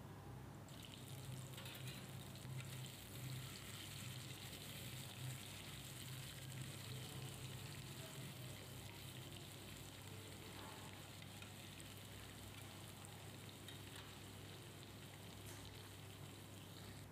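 Fried-and-ground masala paste sizzling faintly in hot oil in a nonstick kadai, scraped and stirred with a spatula. The sizzle comes up about a second in, over a low steady hum.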